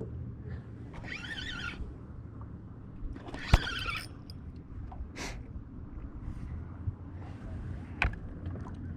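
Outdoor ambience over a steady low rumble, with two bursts of high chirping calls about one and three and a half seconds in. A single sharp knock at about three and a half seconds is the loudest sound, and a fainter knock comes near the end.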